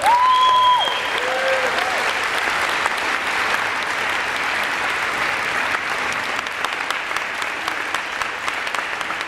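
Audience applauding at the end of a tango performance, a steady dense clapping with a few calls from the crowd in the first second or so.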